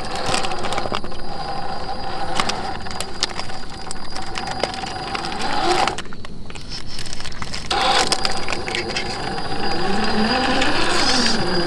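Electric motor and gearbox of a 1/10-scale RC4WD Land Cruiser FJ45 rock crawler whining as it crawls, with dirt and small stones crackling under the tyres. The whine cuts out for a moment about halfway, then returns, its pitch rising and falling near the end as the throttle changes.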